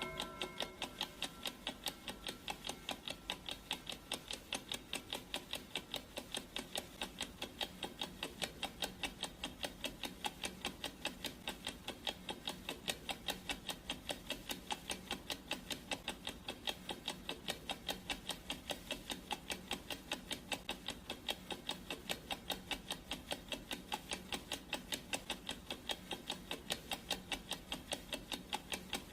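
Clock-ticking sound effect: steady, even ticks a few times a second, with the last of a ringing tone dying away in the first second.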